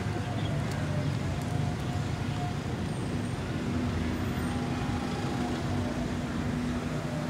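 Steady city road traffic: a continuous rumble of passing vehicles, with a low engine hum that holds steady from about three seconds in.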